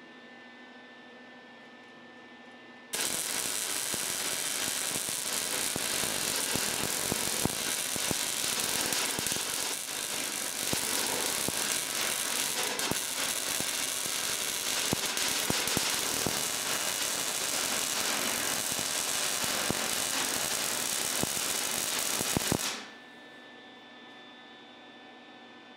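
MIG welder arc crackling steadily as a bead is run on the steel frame rail of a 1943 Willys MB jeep, seam-welding a patch section in. It starts abruptly about three seconds in and cuts off abruptly near the end, with a faint hum before and after.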